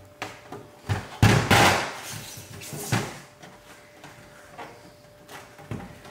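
Hard plastic freezer basket knocking and clattering as it is handled, with the loudest cluster of knocks about a second in and another knock near three seconds.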